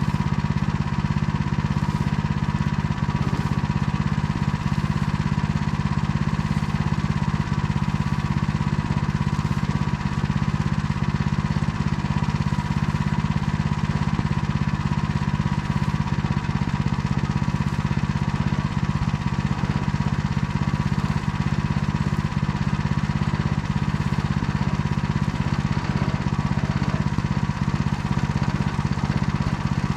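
Engine running steadily under load, driving a Motor Sich rotary tiller through stubble, with an even low hum and no change in speed.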